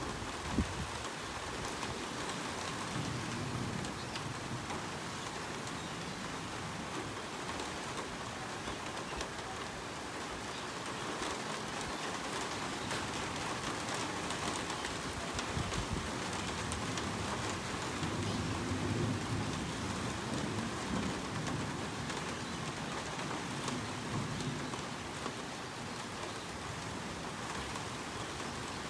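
Steady rain falling on surfaces, with low rumbles of thunder a few seconds in and again through the second half.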